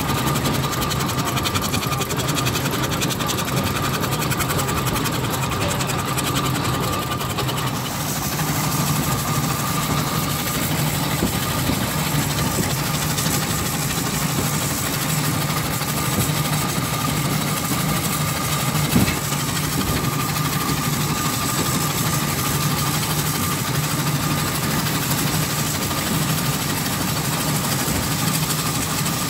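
Burrell steam traction engine running along the road, heard from its footplate: a steady, fast mechanical clatter from the engine and its gearing, with one sharp knock about two-thirds of the way through.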